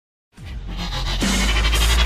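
Electronic music, dubstep-like, fading in after a brief moment of silence and building up.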